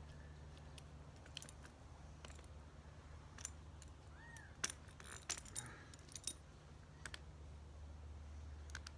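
Scattered metallic clicks and taps of vice grips working on a PVC compression fitting, the densest run a little past the middle. A cat meows once, briefly, about four seconds in.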